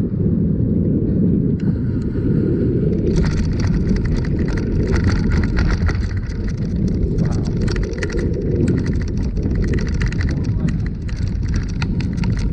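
Bicycle clattering and rattling over the planks of a wooden bridge, very noisy and bumpy: from about three seconds in, a fast, uneven run of knocks over a steady low rumble.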